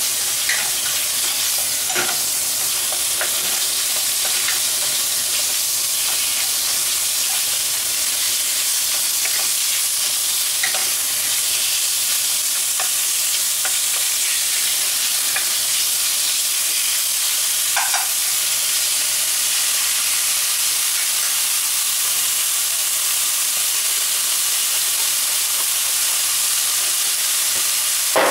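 Sliced pork sizzling in a frying pan with a steady hiss, stirred with a wooden spatula that scrapes and taps the pan now and then. A sharp knock comes near the end.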